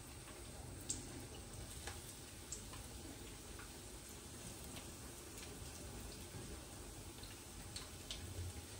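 Faint deep-frying: tempura-battered broccoli and carrot pieces bubbling gently in oil, with a few small scattered crackles.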